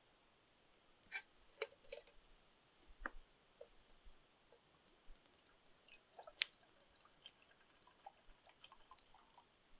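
Faint, scattered clicks and light knocks from a metal canteen and cup being handled, with a few drips of water. The loudest is a single sharp click a little past halfway.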